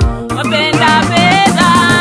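Gospel choir song: voices singing over a keyboard and drum backing with a steady beat.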